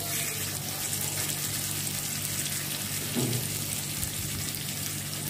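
Marinated beef steaks sizzling steadily on a hot, oiled cast-iron grill pan, with a low steady hum underneath.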